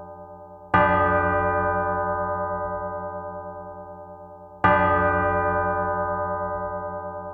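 A church bell tolling, heard close up, struck twice about four seconds apart. Each stroke rings on and fades slowly, with a low, pulsing hum beneath.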